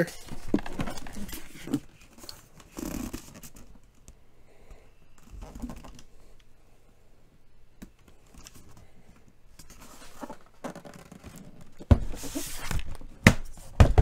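Hands handling a plastic mini fridge: scraping and rustling against its shelves and door trays, then several sharp knocks and thumps near the end as the door is shut.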